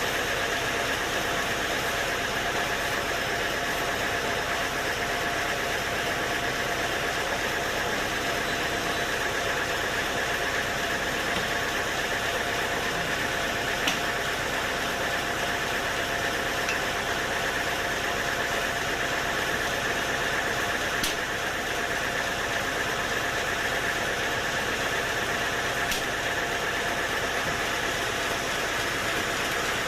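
Sawmill machinery running at a steady pitch and level, a constant mechanical hum with a steady whine, with a few faint ticks.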